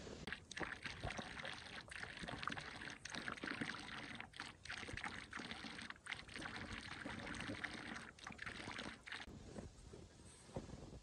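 Water splashing and sloshing in irregular strokes, broken by several brief pauses, dying away near the end.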